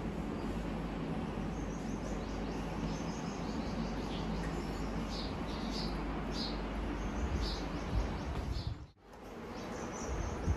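Steady low rumble and hiss of outdoor background noise, with short high bird chirps repeating through the middle. The sound cuts out for a moment near the end and comes back.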